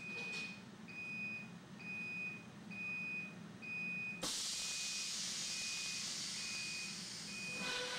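An automatic fence welding machine's warning beeper sounds a high beep about once a second over a steady low machine hum. About four seconds in, a loud steady hiss starts suddenly and runs under the beeps.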